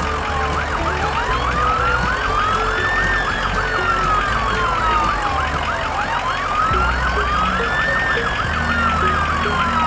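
Emergency-vehicle siren wailing: a slow rise and fall about every five seconds, with a faster yelping siren layered over it and a steady low beat underneath.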